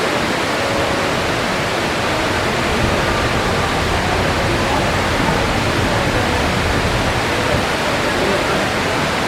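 Steady rush of the Mirage volcano's man-made waterfalls pouring into the lagoon, with crowd chatter faint underneath.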